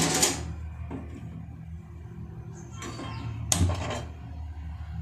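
Gas stove burner turned on and lit about three and a half seconds in, a short hiss with a low thump, after a brief clatter of a steel pot on the stove at the start.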